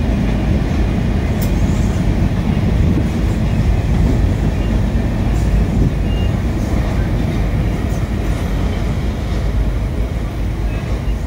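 Freight train cars rolling past, a steady low rumble of wheels on rail that eases slightly near the end.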